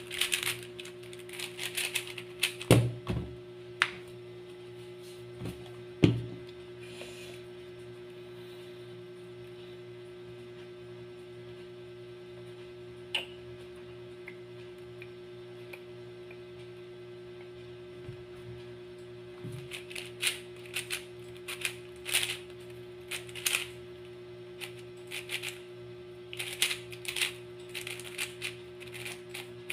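Plastic layers of a YJ MGC 4x4 speedcube clicking as it is turned by hand, in bursts of quick turns at the start and through the last third, with fewer clicks in between. A few dull thumps come in the first six seconds, over a steady hum.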